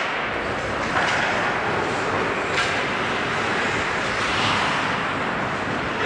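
Ice hockey play: skates scraping and carving on the rink ice as a steady rush of noise, with sharp clacks of sticks or puck about a second and two and a half seconds in.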